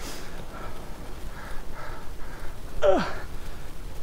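A cyclist breathing hard as he starts pedalling uphill, with one falling groan about three seconds in, over a low rumble of wind on the helmet microphone.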